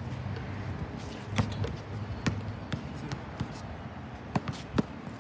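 Basketball bouncing on an outdoor hard court: a handful of sharp thuds at uneven intervals, over a steady low rumble.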